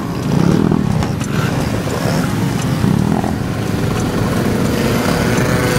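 Several small moped and scooter engines running steadily, the nearest one close to the microphone.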